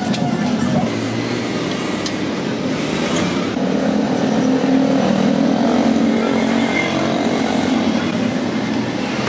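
A motor running steadily, with a few faint clicks near the start.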